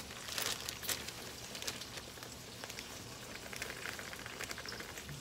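Bacon frying in a pot of oil: a steady sizzle with scattered crackles and pops.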